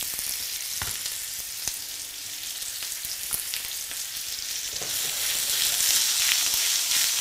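Sliced potatoes and crushed garlic sizzling in hot olive oil in a frying pan over high heat, with a few light clicks. The sizzle grows louder about five seconds in as the pan is shaken to toss the slices.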